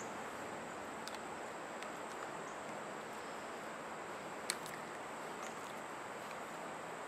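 Outdoor ambience: a steady hiss with a thin, high, unbroken drone, and a few faint sharp clicks, the sharpest about four and a half seconds in.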